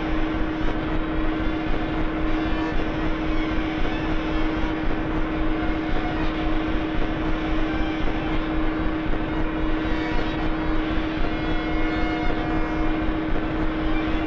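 Droning ambient soundtrack music: one steady low held tone over a dense, engine-like rumbling noise that flutters a few times a second.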